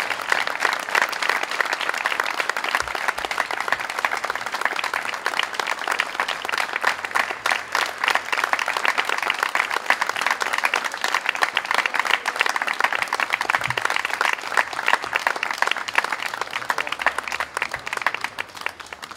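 A crowd of people clapping steadily, dying away near the end.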